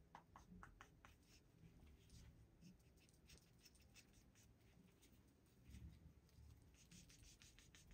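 Faint scratching and light ticks of a small revolver being cleaned by hand, barely above room tone.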